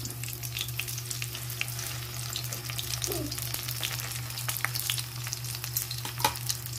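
Vegetable lumpia (spring rolls) frying in shallow oil in an aluminium wok: the oil sizzles steadily with many small crackling pops, over a steady low hum.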